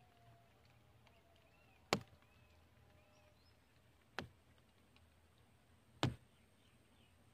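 Three sharp knocks, about two seconds apart, over quiet outdoor background.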